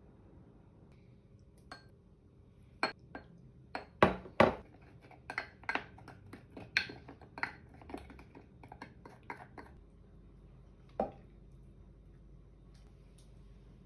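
A small metal utensil clinking and tapping against a small glass bowl while stirring a sesame-mayonnaise dressing: a run of irregular clinks, the two loudest about four seconds in, dying away by about ten seconds, then one last tap near eleven seconds.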